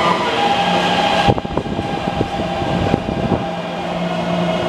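Taipei Metro C321 train running, with steady whining tones, which the uploader flags as abnormal inverter noise. About a second in there is a sharp knock, then a couple of seconds of rattling knocks before the steady running sound returns.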